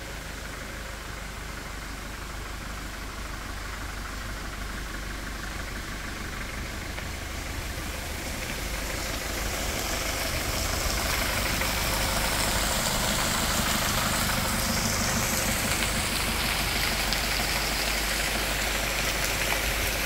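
Steady rushing of stream water over rock, with a low rumble underneath, growing louder about ten seconds in and then holding steady.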